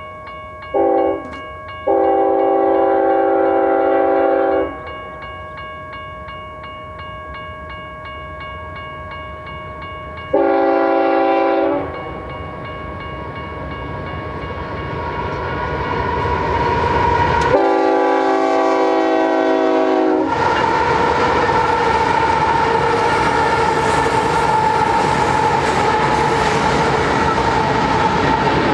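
Union Pacific GE C45AH locomotives' air horn blowing for a grade crossing: a short blast, a long one, then two more long blasts several seconds apart. A steady crossing bell rings underneath. The rumble of the approaching train grows, and in the last several seconds the locomotives and cars pass loudly with a clickety-clack.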